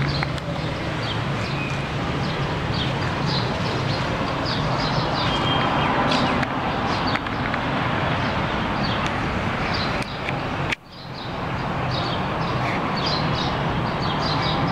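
Outdoor street ambience: steady traffic noise with a low hum, and many small birds chirping over it. The sound drops out briefly about three-quarters of the way through and fades back in.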